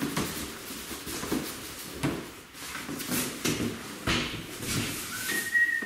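Large cardboard box being handled and stood upright: cardboard rustling and scraping with scattered knocks, and a short high squeak near the end.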